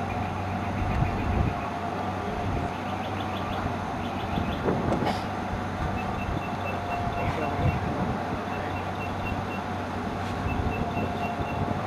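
Car running, heard from inside with the window down: a steady low rumble with a steady hum. Faint quick high ticks come and go in the second half.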